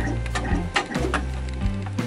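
Background music with low, held bass notes that change pitch every half second or so, over a few sharp clicks from the Da Vinci 2.0 3D printer as it starts laying down PLA.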